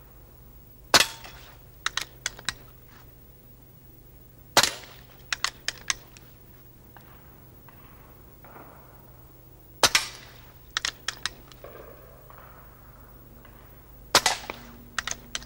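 Four shots from a Theoben Rapid 7 pre-charged pneumatic air rifle, heavily silenced with a two-stage silencer, fired a few seconds apart. Each shot is followed within a second by a quick run of three or four smaller sharp clicks.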